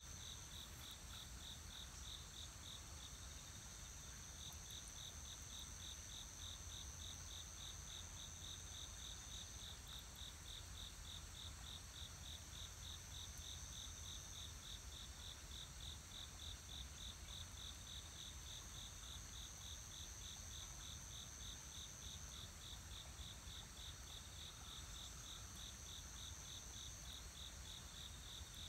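Insects chirping: a high, evenly pulsed chirp about three times a second, with a higher steady trill that drops out and returns several times, over a faint low rumble.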